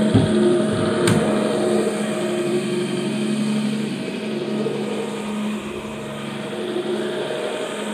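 Carpet-cleaning machine running with a steady hum. Two knocks about a second apart near the start.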